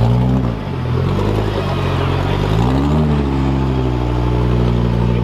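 Off-road racing vehicle's engine running under changing throttle: the revs rise briefly, drop about a second in, climb again about three seconds in and hold high before easing off near the end.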